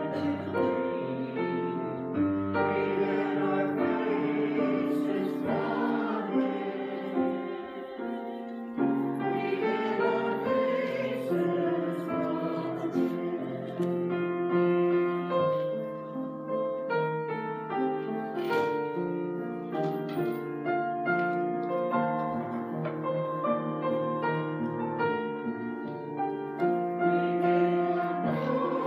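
Church choir singing a slow, sustained piece, with some keyboard accompaniment.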